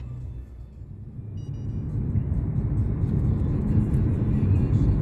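Car road and engine noise heard inside the cabin, a steady low rumble. It grows louder from about a second in as the car picks up speed.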